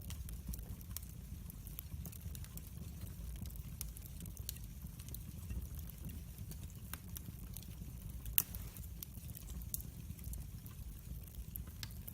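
Wood fire burning in a fireplace, a low steady rumble under irregular small crackles and pops from the logs, with one sharper snap a little past the middle.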